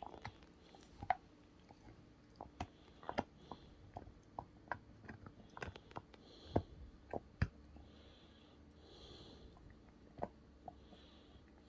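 A dog gnawing and chewing on something hard, making irregular sharp clicks and crunches.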